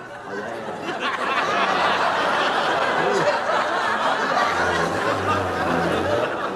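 Audience laughing, swelling about a second in and carrying on loudly.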